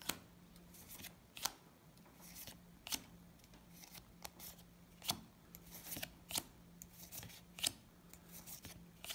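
Magic: The Gathering cards being flicked one at a time off a hand-held stack, each card sliding over the next with a short, soft swish or snap, about once a second at an uneven pace.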